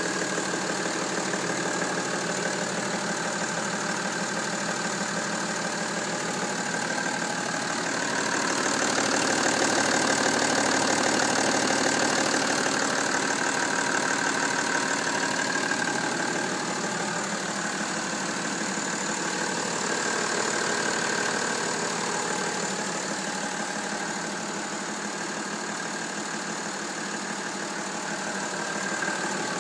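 BMW M57 straight-six diesel engine running steadily at idle, with an even diesel clatter. It grows a little louder for a few seconds about a third of the way in, then settles back.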